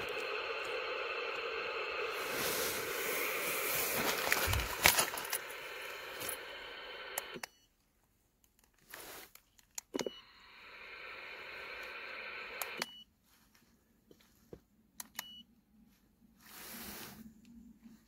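Car-radio console electronics switched by remote control: a steady radio hiss plays and cuts off suddenly about seven seconds in, comes back for a few seconds around the ten-second mark and cuts off again, with short electronic beeps and sharp clicks at each switch.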